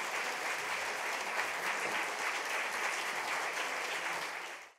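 Concert-hall audience applauding, a dense steady clapping that fades out sharply near the end.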